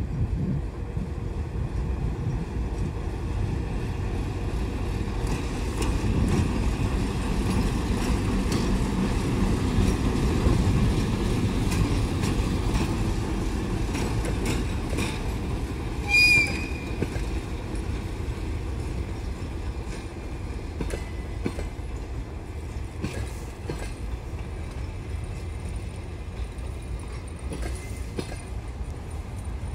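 ChME3 shunting diesel locomotive hauling a passenger train out, its diesel engine rumbling, loudest about ten seconds in as it passes, then the coaches rolling by with the rumble slowly easing. A brief high-pitched tone sounds about sixteen seconds in.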